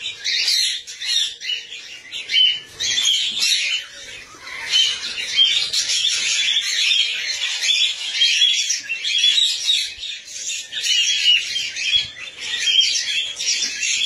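Cockatiels chattering: a near-continuous run of short, high chirps and squawks.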